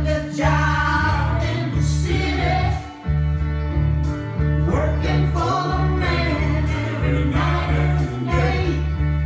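A song playing, with singing over a steady, heavy bass line.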